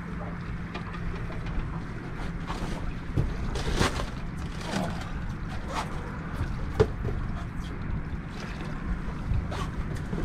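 Steady low hum and wind noise on a boat on the water, with scattered knocks and clicks from the boat and gear.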